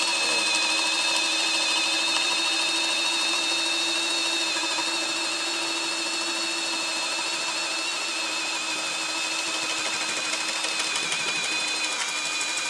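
Kobalt cordless hammer drill in drill mode on speed 1, running steadily under load as a spade bit bores into a wooden beam: a steady motor and gearbox whine.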